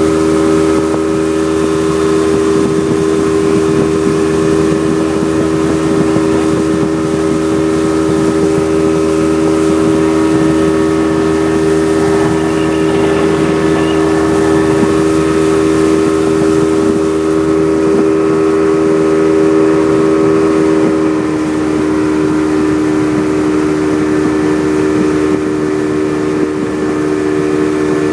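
Motorboat engine running steadily at speed, a constant droning tone with a rushing hiss over it; the pitch drops slightly about three quarters of the way through.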